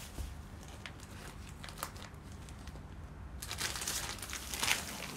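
Clear plastic packaging of a suit set crinkling as it is handled: faint scattered crackles at first, then louder, denser rustling from about three and a half seconds in.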